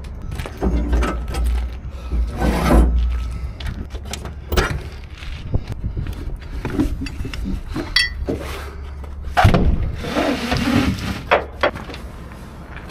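Irregular knocks, clanks and rustling, as of gear being handled, over a steady low rumble.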